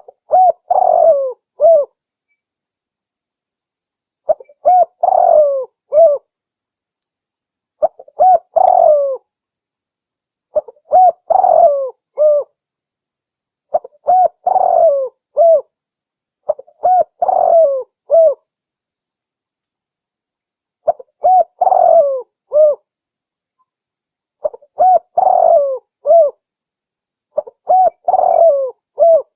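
Spotted dove cooing: a phrase of several low, hollow coo notes, repeated nine times about every three seconds.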